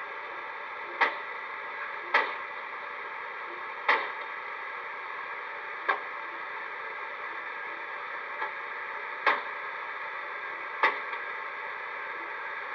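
Car doors slammed hard, six times at uneven gaps of one to three seconds, with a lighter knock between the fourth and fifth. Each slam is a sharp bang over a steady background hiss.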